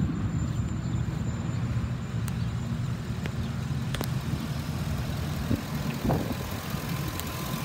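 2014 Ford E450 box truck's engine idling steadily, heard with the hood up.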